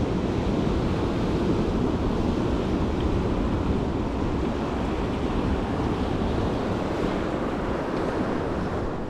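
Ocean surf washing onto a beach, a steady rushing noise, with wind on the microphone.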